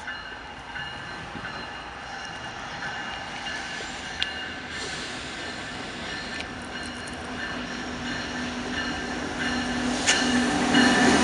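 Diesel-hauled freight train with several locomotives approaching, growing steadily louder, with a thin, steady high whine throughout. The locomotives' low engine drone builds over the last few seconds and the sound jumps in loudness near the end as the lead units come alongside.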